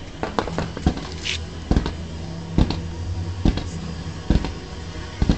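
Fireworks firing: a run of sharp bangs, about one a second, seven in all, with a brief hiss about a second in.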